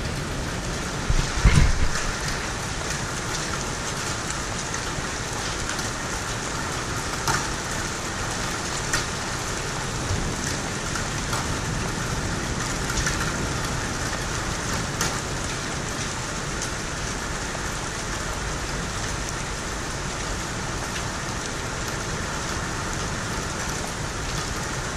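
Hailstorm: a steady hiss of heavy rain and hail coming down, with scattered sharp ticks of stones striking hard surfaces. A brief low rumble sounds about a second and a half in.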